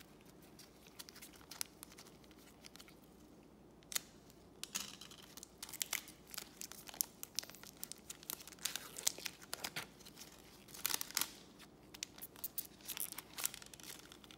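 A foil trading-card pack being torn open by hand along its crimped seal, crinkling and tearing. A few light clicks come first; the crinkling starts about five seconds in and keeps going as the wrapper is pulled apart around the cards.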